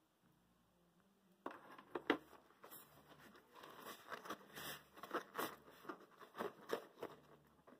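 Hand rummaging in a zippered nylon cable bag: the fabric and braided power-supply cables rustle and scrape in an irregular run of short strokes, starting about a second and a half in.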